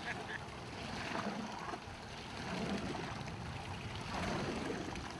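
Steady rushing noise of open sea water with light chop, no distinct events, growing fainter near the end.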